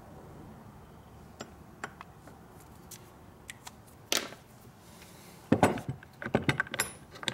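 Light clicks of metal parts being handled, then a quick run of sharp metal clinks and knocks from about five and a half seconds in, as a steel Panhead rocker arm and its support are moved about on a steel fixture plate.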